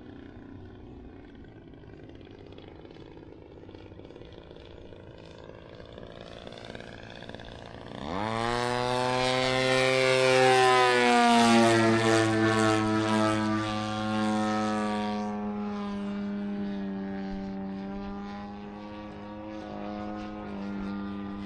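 Desert Aircraft DA-120 twin-cylinder two-stroke gas engine on a large radio-controlled airplane making a fast low pass. It is faint and slowly building at first, turns suddenly loud about eight seconds in as the plane passes close, drops in pitch as it goes by, and then fades away.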